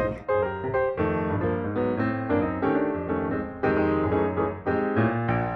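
Background music: a light piano tune, notes and chords struck in quick succession and left to fade.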